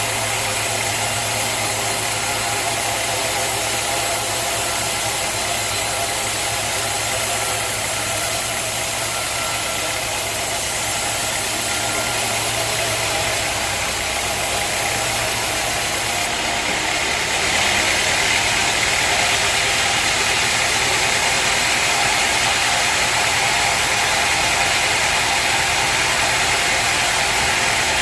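Sawmill machinery running steadily, getting louder about two-thirds of the way through.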